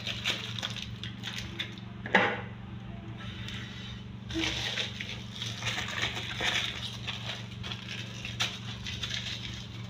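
Aluminium foil crinkling and crackling as it is peeled back from a ball of rested dough, with a short louder rustle about two seconds in and a longer stretch of rustling from about four seconds in as a hand spreads flour over the tabletop. A steady low hum runs underneath.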